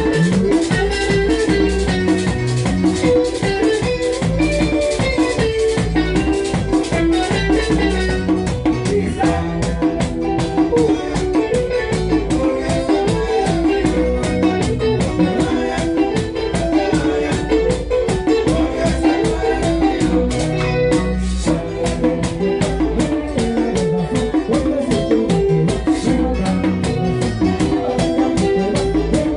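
A live band plays with acoustic guitar, bongos and a foot-pedal bass drum, and a metal güira is scraped in a steady rhythm.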